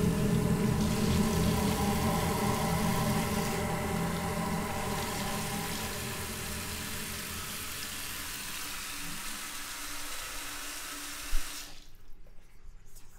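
Water running from a tap into a bathroom sink, a steady rush over a low droning hum that slowly fades. Near the end there is a sharp click and the running water stops.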